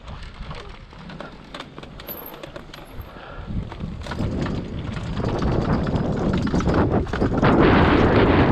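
Off-road electric bike riding over rough forest trail: a dense run of knocks and rattles from the tyres and frame over the ground, with wind buffeting the microphone, growing louder over the second half.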